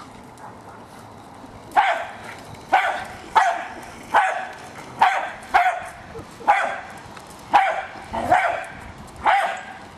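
Jack Russell terrier barking at a remote-controlled toy car: about ten sharp barks, a little under a second apart, starting about two seconds in.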